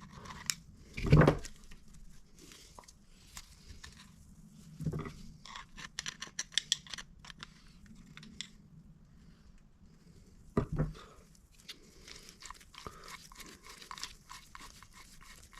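Hands working on a small metal gear reducer while cleaning old grease out of it: scattered clicks, scrapes and rustling, with three dull knocks (about a second in, near the middle and after ten seconds).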